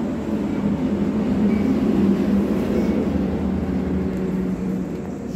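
A steady low hum with a faint pitched drone, swelling slightly in the middle.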